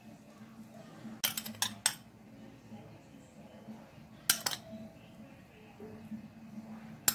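Metal spoon clinking against a dish: a quick cluster of clinks about a second in, two more around four seconds, and one near the end.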